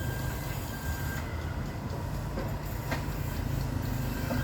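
Sawmill machinery running: a steady low drone with a few faint higher tones and an occasional short knock.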